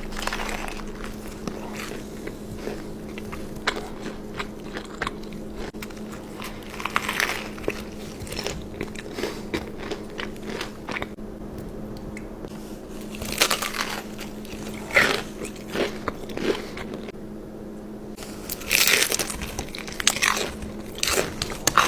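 Close-miked biting and chewing of crunchy food, with a few louder crunching bites spread through the stretch, over a steady low hum.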